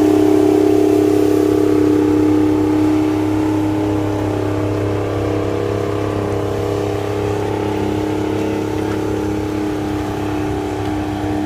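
Several tractor engines running together at a steady pull, making a dense, even drone with a strong steady pitch. It eases off slightly after about three seconds.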